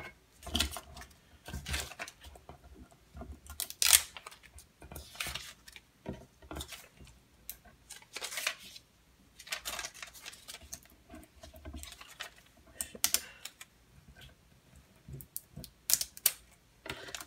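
Irregular rustling, light sliding and tapping as vinyl decal cutouts and their paper backing are handled and moved around on a painted wooden toilet seat lid, some brief and louder than others.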